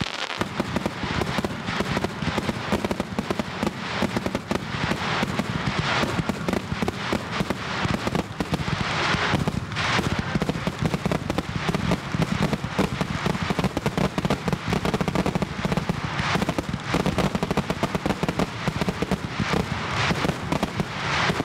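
Fireworks display: a dense, unbroken barrage of bangs and crackles, many a second, with no let-up.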